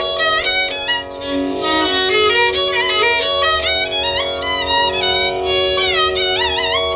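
Carnatic violin playing raga Bilahari in free, unmetered phrases with sliding, ornamented notes over a steady drone, with a short break in the phrase about a second in.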